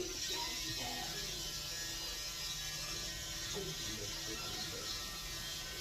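Barber's electric hair clippers switched on and running with a steady buzz.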